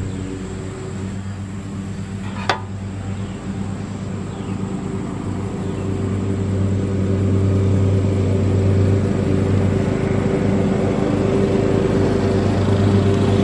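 A steady, low machine hum from a running motor, growing louder about halfway through, with one sharp click about two and a half seconds in.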